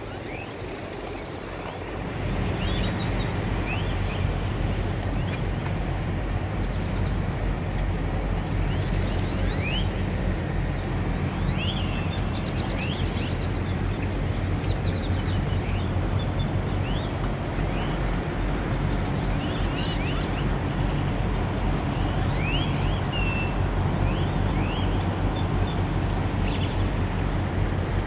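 A huge flock of great-tailed grackles calling all at once: a dense din of chatter crossed by many sharp, rising and falling whistles. Under it a steady low hum sets in about two seconds in and carries on.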